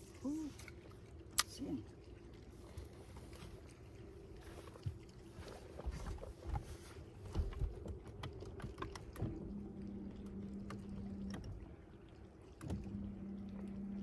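Scattered light clicks and knocks of fishing tackle being handled in a small boat, with a few dull thumps about six to seven seconds in. A steady low hum comes on twice, about nine seconds in for two seconds and again near the end.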